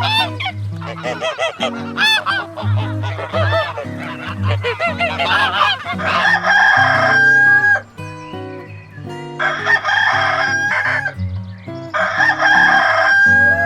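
Chickens clucking in quick short calls, then three long crows from a rooster, each held about a second and a half, over background music.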